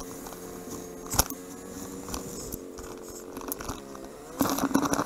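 Motorcycle engine running at a steady pitch while cruising, with a sharp knock about a second in. The engine pitch rises as it accelerates near the end, and loud wind buffeting on the microphone comes in during the last second.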